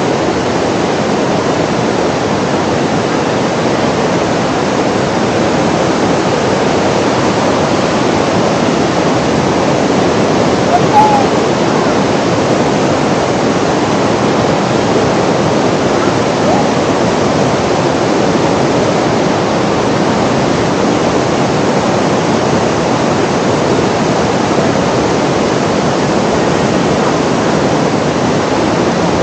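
Cascading water: a steady, loud rush of fast-flowing water, with a single short high note about eleven seconds in.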